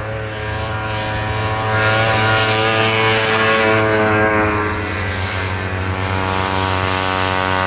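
Vintage racing snowmobiles' two-stroke engines running at high revs as the sleds come closer. The sound grows louder over the first two seconds, and the pitch drops slightly about halfway through.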